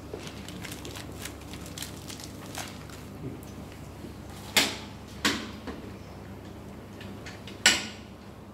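Clunks and clacks from handling a stainless-steel Stephan food-processing mixer and its lid, over a steady low hum. There are three loud knocks, about a second in from the middle, then shortly after, and the loudest near the end as the lid is being clamped.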